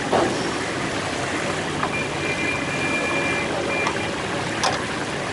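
Fish deep-frying in a wide steel wok of hot oil, a steady dense sizzle and bubbling, with a few sharp clicks of the slotted spoons against the pan.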